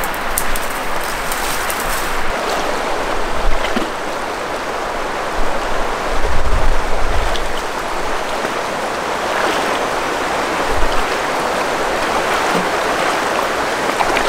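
Shallow mountain river rushing steadily over rocks, with a few low thuds about six to seven seconds in.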